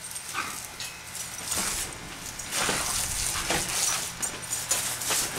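Garden hose spray hissing and splattering onto two dogs as they snap and jump at the stream, with scattered splashes. Louder from about halfway through.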